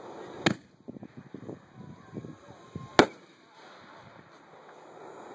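Consumer aerial firework cake going off: two sharp bangs about two and a half seconds apart, the second one louder, with a scatter of smaller pops and crackles between them.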